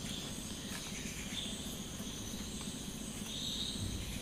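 Steady background of insects, crickets, chirping, with a faint low rumble of outdoor ambience.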